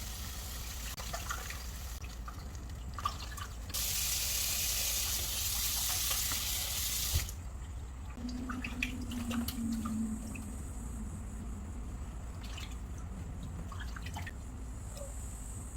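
Kitchen tap running into a sink for about three seconds, starting a few seconds in and shutting off abruptly, followed by light clicks and knocks of kitchenware. A steady low hum runs underneath.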